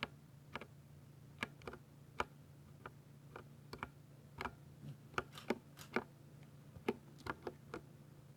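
Typing on a Ducky mechanical keyboard with silver switches: about twenty separate keystrokes at uneven intervals, over a low steady hum.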